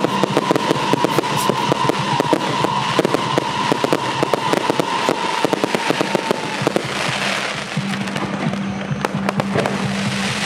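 Aerial fireworks show: rapid volleys of bangs and crackling bursts, many per second, easing off briefly about seven seconds in before picking up again.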